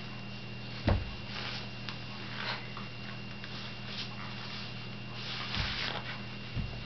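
A small child taking off strapped sandals on a carpeted floor: a soft thump about a second in, then faint rustling and a couple of lighter knocks, over a steady low hum.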